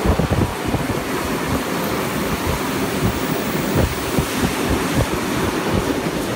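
Wind rushing past and buffeting the microphone on a moving train, over the steady running noise of trains at speed.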